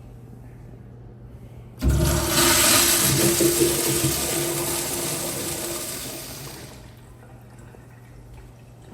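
A restroom fixture flushing: a sudden rush of water about two seconds in, loud for a couple of seconds, then gradually fading out about five seconds later.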